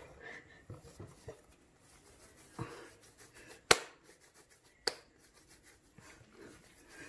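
Quiet handling of soft bread dough, lifted from a glass bowl and shaped by hand, with a soft knock and then two sharp clicks a little over a second apart near the middle.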